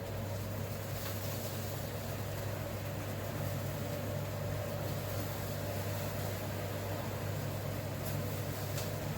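Steady mechanical hum from a running appliance or fan, a low drone with a fainter higher tone above it, unchanging throughout.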